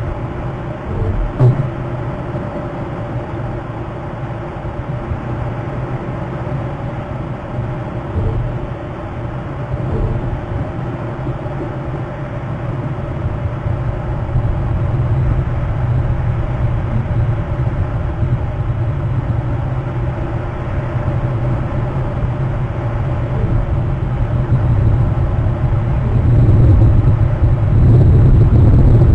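Steady low rumble on an outdoor microphone, growing louder in the last few seconds.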